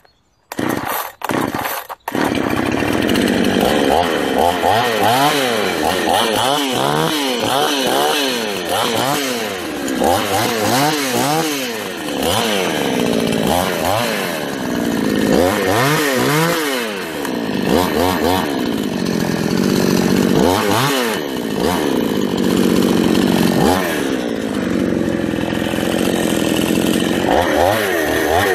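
Generic 52cc two-stroke chainsaw starting: it fires in a few short bursts, catches about two seconds in, then runs with the throttle revved up and down over and over.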